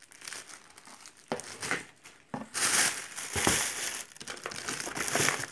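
Clear plastic packaging crinkling and rustling as hands handle and rummage through plastic-wrapped items in a cardboard box. The crinkling is loudest in the middle, with a few sharp crackles.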